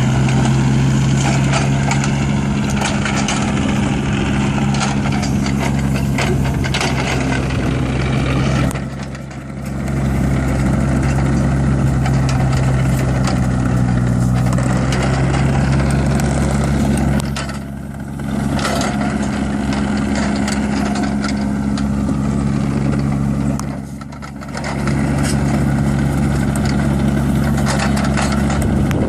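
Diesel engine of a Hitachi ZX35U mini excavator running at a steady speed, with a constant rattle over the engine note. Three times the whole sound drops away briefly before coming back.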